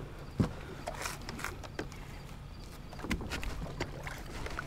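Light knocks and clicks of a fishing kayak and its gear moving on the water, scattered through, with the strongest knock about half a second in, over a steady low rumble.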